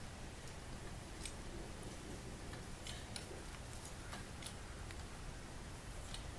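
Faint, irregular clicks and ticks from the hoist's 8-ton hydraulic bottle jack and its pump handle as the jack is worked against a load that will not lift, over a low steady rumble.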